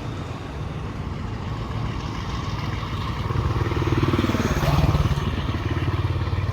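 An engine running with a steady throbbing beat, growing louder from about three seconds in and loudest near the five-second mark.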